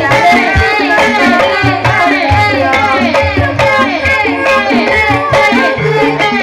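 Ebeg accompaniment music: Javanese gamelan with kendang hand drums keeping a steady, driving rhythm under quickly bending melodic lines.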